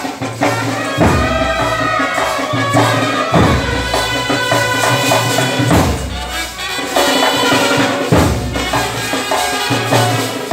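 Traditional festival folk music: heavy drum strokes every one to two seconds under a melody of long held notes.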